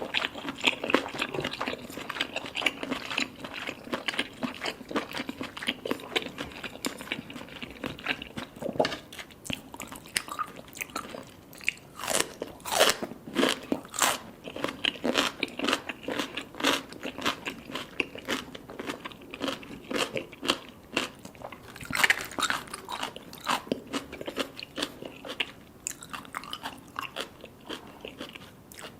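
A person biting and chewing baby cuttlefish: a steady run of soft, crunchy chewing clicks, with a few louder crunching bites near the middle.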